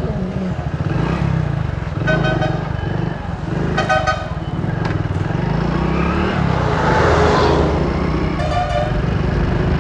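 Road traffic with vehicle horns giving short toots, three bursts about 2, 4 and 8.5 seconds in, over a steady low rumble. A vehicle passes about 7 seconds in.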